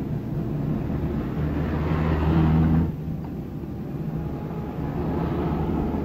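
Car engines running as cars drive past, swelling louder about two seconds in and then cutting off abruptly; a quieter, steady hum carries on after the cut.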